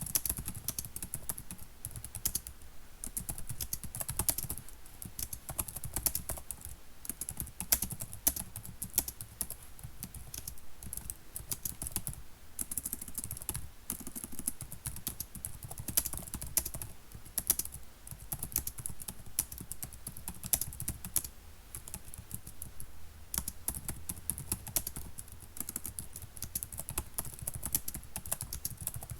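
Computer keyboard being typed on continuously: quick, irregular key clicks, several a second, with the odd louder keystroke.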